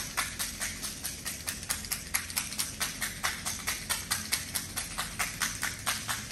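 Small hand clappers clicking rapidly and evenly, about five clicks a second.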